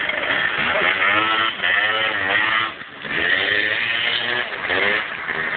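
Motorcycle engine revving hard as the bike accelerates away on a wheelie, its pitch climbing and falling in surges, with a short drop in throttle about halfway through.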